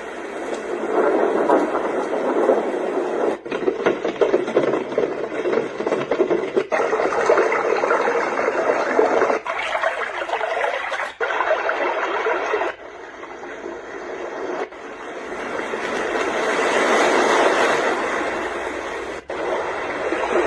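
White noise sleep machine's speaker playing its built-in sounds one after another: about eight steady rushing, hiss-like tracks in turn, each cutting off abruptly as the next begins every two to five seconds.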